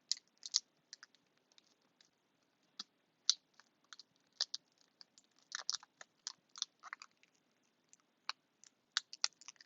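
Tape being handled and pressed down by hand: irregular small crackles and clicks, some in quick clusters.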